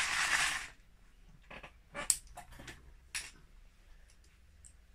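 A short rustling clatter, then a handful of sharp separate clicks: plastic Lego bricks being pulled apart and dropped into a plastic tub.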